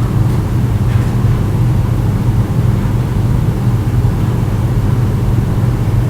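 A steady low droning hum, even throughout, with a faint tick or two in the first second.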